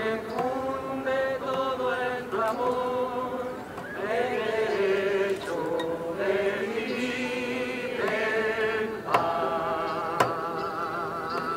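Voices singing a slow melody, with long held notes that glide up and down.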